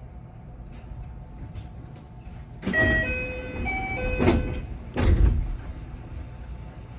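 JR West 227 series train's passenger doors closing at a station stop: a short run of chime tones over the rush of the door mechanism, ending in heavy thuds as the doors shut, over the train's steady low hum.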